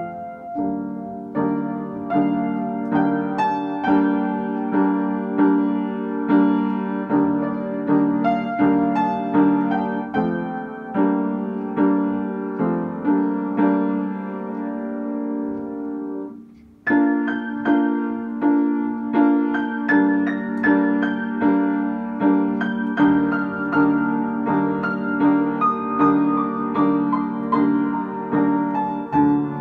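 Upright piano played solo: a slow piece with a steadily pulsing chord pattern in the lower register under a melody higher up. The playing breaks off for a moment just past halfway, then carries on.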